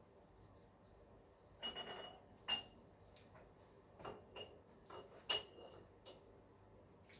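Several light metal-on-metal clinks and knocks, irregularly spaced, some with a brief high ringing.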